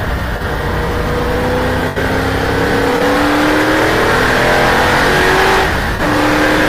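Racing car's engine heard from onboard, accelerating hard with its pitch climbing steadily through each gear, with an upshift about two seconds in and another about six seconds in.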